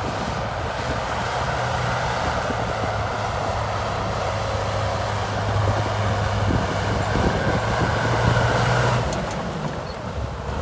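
Heavy diesel engine of an earthmoving machine running steadily and hard, dropping off briefly near the end.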